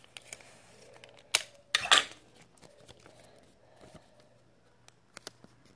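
Paper and clear tape handled by hand: a few sharp clicks and one short rustling rip about two seconds in, with soft crinkling between.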